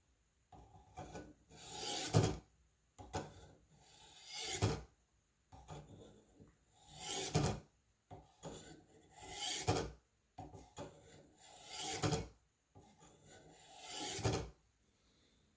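Steel blade of a Buck 119 hunting knife drawn through a Warthog V-sharpener's 1,000-grit diamond rods at the medium angle setting: six slow scraping strokes about 2.5 s apart, each growing louder toward its end.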